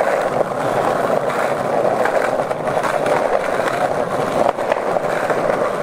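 Skateboard wheels rolling over street asphalt: a continuous gritty rolling noise, with a brief dip in level just past the middle.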